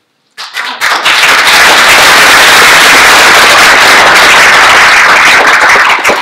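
Audience applauding. It starts about half a second in, is at full strength within a second, and thins slightly near the end.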